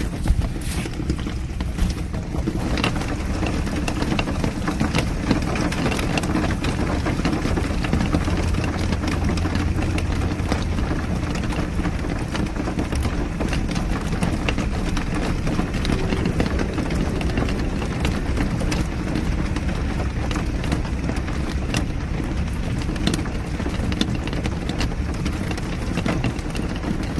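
A car driving in the rain: a steady low rumble of engine and road, with scattered short taps of rain throughout.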